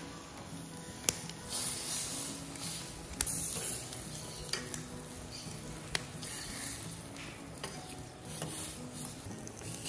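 Thin pork skin, seasoned with lime and salt, sizzling on the hot cast-iron plate of a wood-fired stove, the sizzle rising and falling in surges. A few sharp taps of a metal fork on the iron as the pieces are turned.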